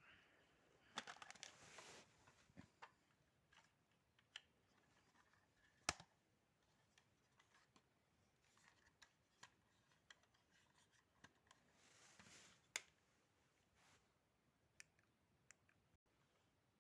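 Near silence broken by scattered faint clicks and two short spells of rustling and scraping, about a second in and again around twelve seconds: small plastic toy pieces being handled.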